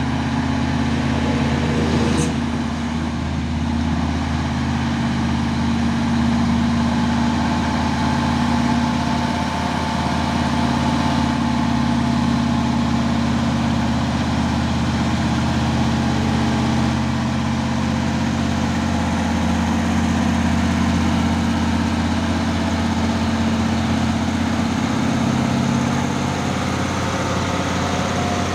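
Heavy truck's diesel engine running steadily at even revs, with a brief click about two seconds in.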